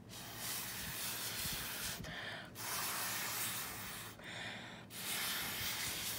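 Air blown hard through a plastic drinking straw to push watery paint across a paper plate: three long, hissing blows with short pauses between them.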